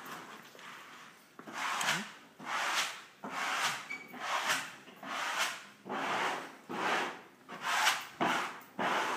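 Repeated rubbing strokes over freshly hung vinyl wallcovering as it is smoothed onto the wall, roughly one stroke a second, starting about a second and a half in.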